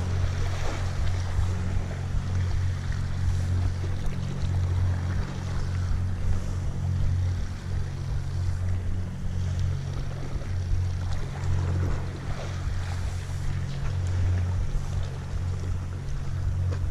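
Low, steady rumble of wind on the camera microphone, with the sea washing against the rock ledge.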